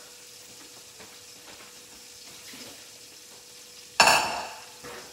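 Chicken sizzling faintly and steadily as it fries without oil in a covered stainless steel pan. About four seconds in, stainless steel cookware clangs sharply once and rings briefly, with a lighter knock just after.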